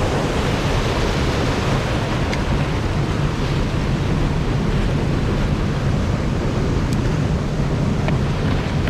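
Steady rushing of water pouring over an overflow weir, with a few faint ticks.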